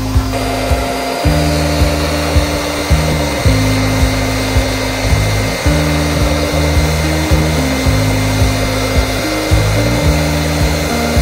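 A Deerma DX1000 corded handheld stick vacuum running steadily on high suction, a continuous motor hiss, under louder background music with a steady beat.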